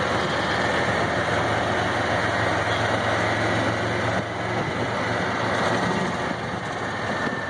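Golf cart driving along: a steady motor hum with road noise, the hum easing a little about four seconds in.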